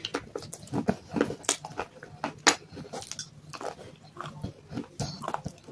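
Close-up crunching and chewing of dry clay chunks in the mouth: a run of sharp, irregular crunches.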